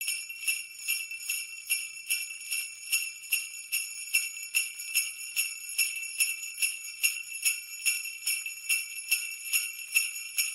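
Sleigh bells shaken in a steady rhythm, about two and a half shakes a second, their high jingle ringing on between strokes.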